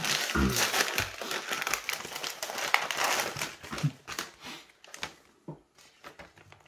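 Food packaging crinkling and rustling as it is handled and opened, dense for about four seconds, then a few scattered rustles and clicks.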